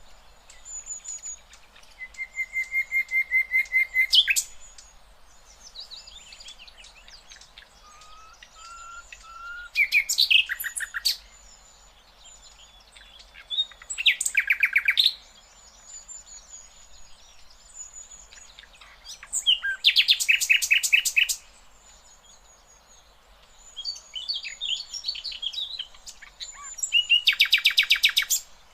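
Sikatan londo flycatcher singing: loud bursts of fast repeated notes, each a second or two long, come every few seconds, with soft high thin notes between them.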